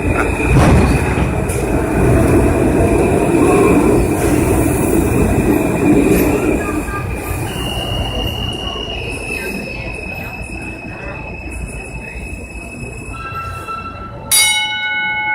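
Kawasaki R160B subway train braking into the station: wheels rumbling over the rails with a steady high squeal, then the rumble fades as the train slows and an electric whine steps and falls in pitch. Near the end a sudden loud tone with several pitches starts.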